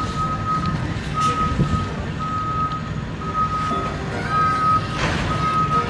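A vehicle's reversing alarm beeps steadily, one beep about every second, over a low rumble.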